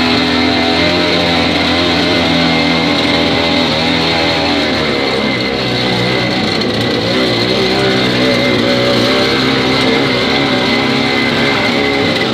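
Small vehicle engine running as it drives, its pitch rising and falling with the throttle.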